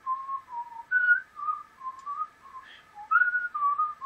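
A person whistling a tune, one clear note at a time in short melodic phrases that step up and down.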